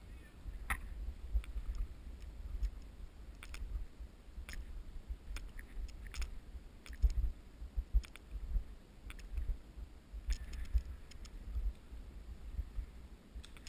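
Irregular crunching footsteps and clicking gear of a player moving through snow, over a low rumble of movement and wind on the microphone.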